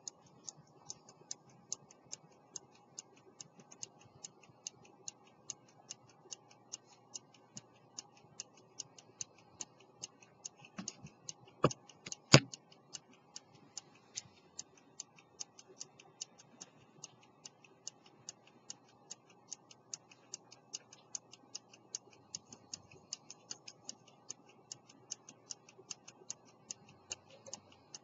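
An 18th-century English verge fusee pocket watch is running, its escapement ticking in a rapid, even beat. Two louder knocks come about twelve seconds in.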